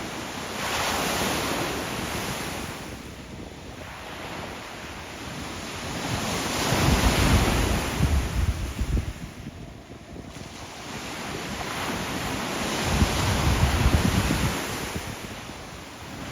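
Sea waves breaking and washing up the shore, rising and falling in about three swells roughly six seconds apart, with a deep rumble at the two loudest, around the middle and near the end. Wind buffets the microphone.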